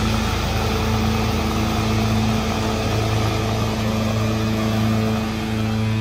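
Black metal music: a dense wall of distorted electric guitar over a steadily held low chord.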